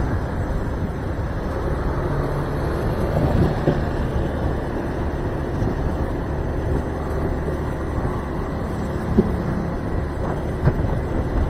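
Motor scooter riding at low speed in town traffic: a steady mix of engine, wind and road noise, with no sudden events.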